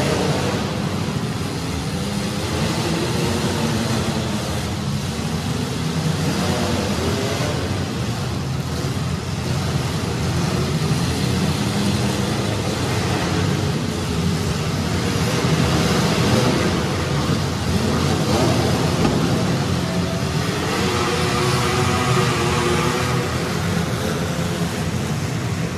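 Several compact demolition-derby car engines running and revving together, their pitch rising and falling over a steady noisy din.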